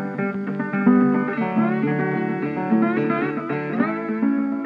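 Outro music: a guitar piece of plucked notes, some sliding up in pitch.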